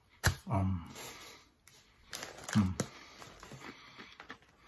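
Crunching and chewing a white cheddar cheese puff close to the microphone, with a sharp mouth click just after the start. Two short murmured vocal sounds come in under a second and again around two seconds in.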